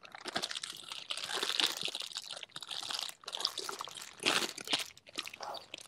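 Small clear plastic bags holding glass cabochons crinkling and rustling in the hands, with many small clicks and a louder rustle about four seconds in.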